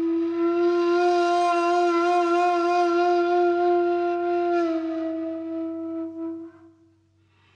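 A single long held note on a wind instrument, wavering slightly, dipping a little in pitch about four and a half seconds in and then dying away near the end.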